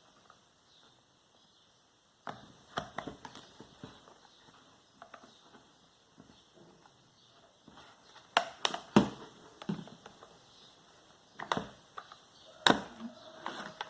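Plastic clicks, snaps and knocks from a column fan's plastic housing being handled while its latches are pressed and released. The clicks start about two seconds in, with a cluster about eight to nine seconds in and two sharp snaps near the end.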